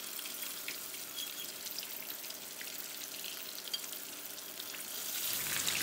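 Whole golden pomfret deep-frying in hot oil in a wok: a steady bubbling sizzle with fine crackles, a little louder near the end.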